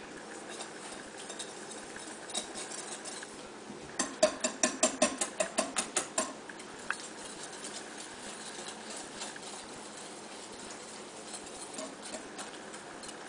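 Wire whisk beating eggs and sugar in a bowl: light scattered ticks, with a quick run of about a dozen taps against the bowl, around five a second, from about four seconds in to just after six.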